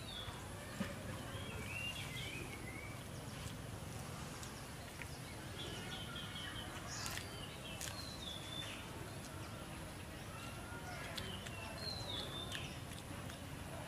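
Short high chirps and squeaks, some in quick runs of four or five, scattered over a steady outdoor background rumble, with a few sharp clicks.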